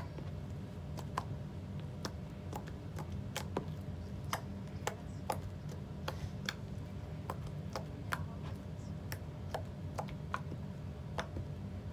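White homemade slime clicking and popping as it is squeezed and stretched in the hands, about two or three sharp clicks a second, over a steady low hum.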